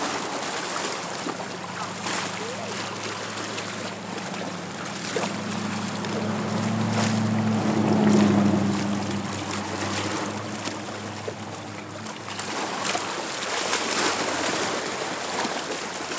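An engine passing by, its low steady hum swelling to a peak about eight seconds in and fading away a few seconds later, over a constant wash of wind and lapping water.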